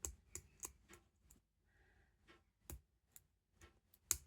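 Lock pick and tension wrench working in a padlock's keyway: faint, irregular small metal clicks and ticks as the pick is worked in, with one sharper click near the end.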